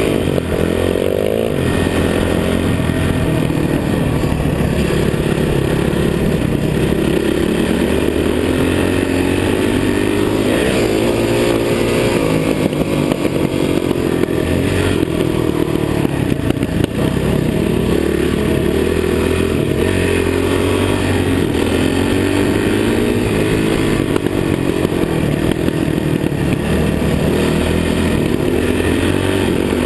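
Dirt bike engine running hard on a trail ride. Its pitch climbs and falls again and again as the throttle opens and closes and the gears change.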